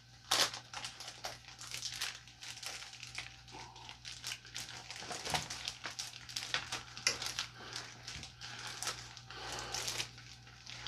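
Paper and packaging rustling and crinkling as they are handled, in irregular bursts, the loudest about half a second in.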